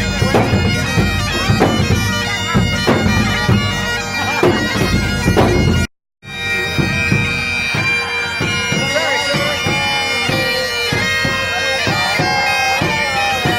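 Bagpipes playing a tune over their steady drones, with drums beating. The music cuts out for a moment about six seconds in, then the pipes and drums carry on.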